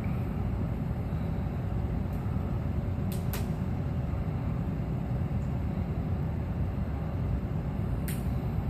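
Steady rushing rumble of wind from an electric fan buffeting the microphone, with a few faint sharp ticks.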